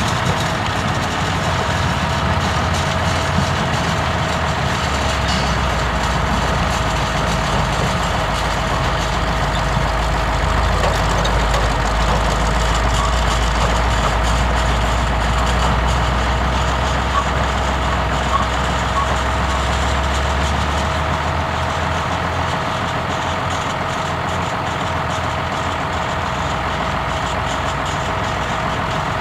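A tractor-drawn sugar beet harvester and diesel beet trucks running steadily in the field, with a thin steady whine. A low engine rumble swells through the middle as a second truck drives up alongside the harvester, then eases.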